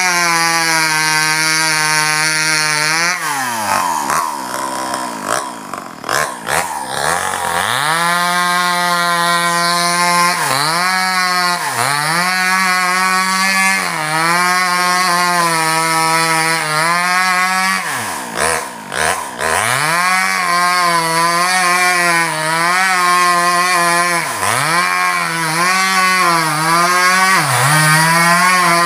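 Stihl MS 180 two-stroke chainsaw running at high revs as it cuts into the trunk of a sengon tree, its pitch dipping again and again as the chain loads up in the wood. Twice, about three seconds in and again around eighteen seconds in, the revs fall away low for a few seconds before the throttle is opened up again.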